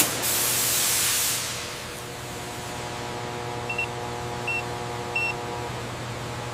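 A sharp click, then a loud hiss like escaping air for about a second, over a steady machine hum with a few steady tones in it. Three short high beeps come about four, four and a half and five seconds in.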